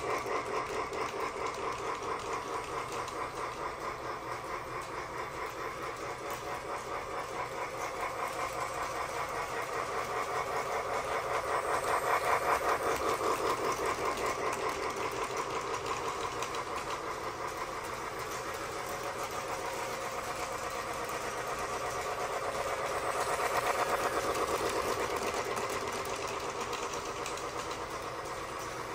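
Battery-powered Lionel toy train running steadily around its track, with a small electric motor hum and a fast clatter of wheels on rail. It gets louder about twelve seconds in and again near the end, as the train comes round past the microphone.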